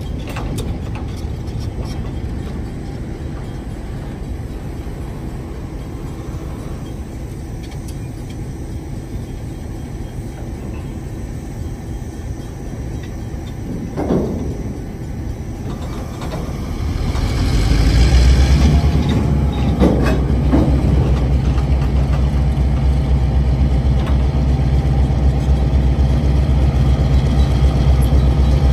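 Diesel locomotive engine running, a low rumble that grows much louder about two-thirds of the way in and then holds loud and steady with a deep, even throb as the locomotive works close by.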